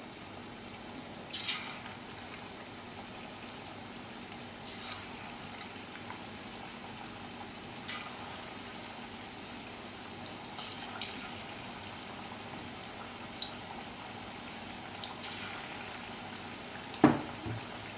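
Batter-coated chicken pieces deep frying in hot oil in a stainless steel wok on medium-low heat: a steady low sizzle with occasional crackles and spits as more pieces go in. A louder knock comes near the end.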